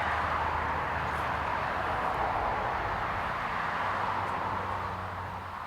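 Steady rushing outdoor noise with a faint low hum underneath, fading slightly near the end.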